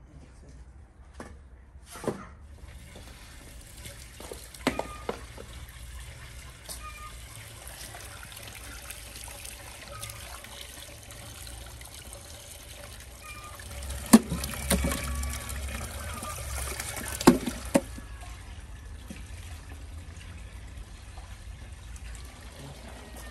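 Water splashing and trickling as raw bull-leg meat is washed by hand in a basin, with a few sharp knocks, the loudest two about halfway through.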